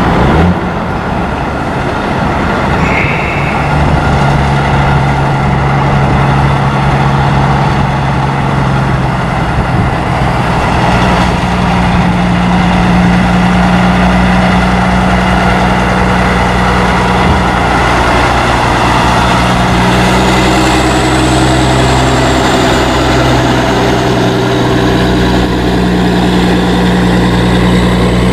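Heavy-haulage prime mover's diesel engine running steadily as it pulls an oversize low-loader. The engine note steps higher about ten seconds in.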